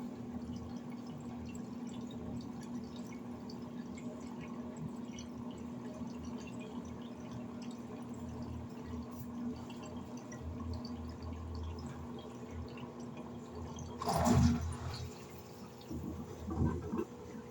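Electrolux LED14 14 kg washing machine running a wash cycle: water moving inside the machine over a steady low hum. About fourteen seconds in there is a sudden louder burst, after which the hum drops and changes pitch.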